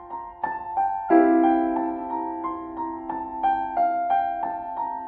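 Background piano music: single notes struck about twice a second over held chords, with a fuller chord struck about a second in.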